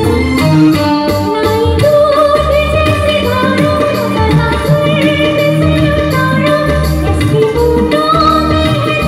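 A woman singing a song live into a microphone, backed by electronic keyboards and guitar, with a continuous bass and rhythm accompaniment.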